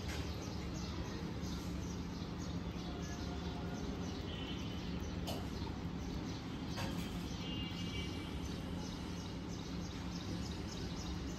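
Steady low background hum with faint, repeated high bird chirps and a few short warbles.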